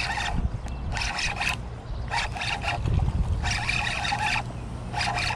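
Spinning fishing reel being cranked in short bursts of a few turns, a whirring retrieve that starts and stops about six times, over a steady low rumble.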